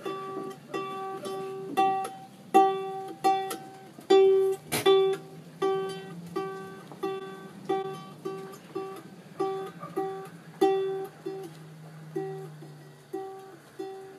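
Ukulele plucked over and over on much the same note, about two plucks a second, each note ringing briefly and dying away.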